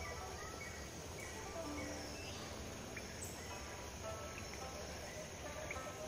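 Steady hiss of flowing river water, with birds chirping over it in short calls and one rising call about two seconds in.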